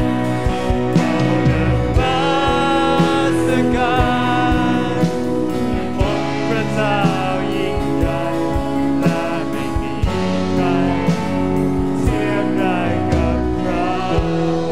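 Christian worship song: a singing voice over a band, with held chords and a steady drum beat.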